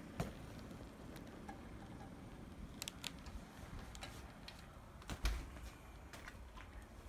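HO-scale brass model train running on the layout's track: a faint, steady low rolling rumble with scattered sharp clicks, the loudest with a low thump a little after five seconds in.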